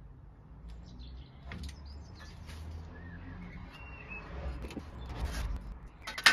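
Light clicks and taps of small metal fixings being handled while solar panel mounting brackets are attached, with one sharp click near the end. Under it, a low rumble of distant traffic and a bird chirping faintly.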